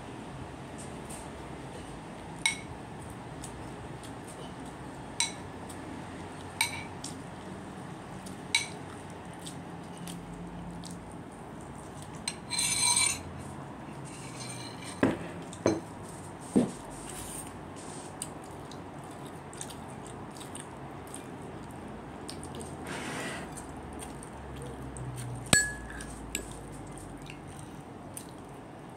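Tableware clinking and tapping against a ceramic bowl, single sharp clicks a few seconds apart, with a short scraping burst about thirteen seconds in.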